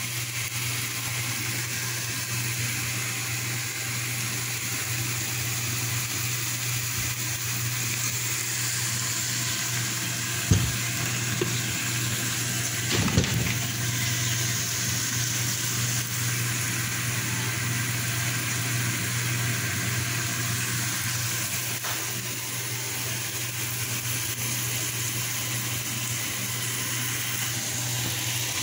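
Chicken pieces frying in oil in a nonstick pot: a steady sizzling hiss over a low steady hum, with two knocks about ten and thirteen seconds in.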